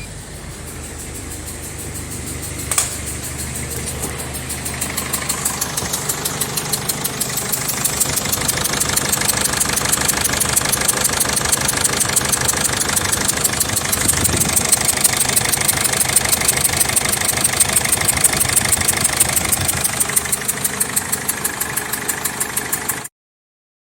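Mercedes Sprinter 2.2 CDI OM611 four-cylinder diesel engine running with a fast, even ticking puff, the engine noise of a leaking injector sealing washer known as "black death". The ticking grows louder over the first several seconds and cuts off suddenly near the end.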